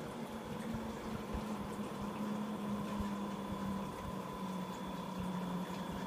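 Cooling fan of a Texas Instruments Portable Professional Computer running steadily: a rushing air noise with a low hum under it.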